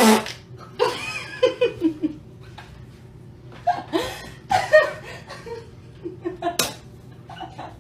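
A short, buzzy fart right at the start, followed by bouts of laughing, with a sharp smack near the end.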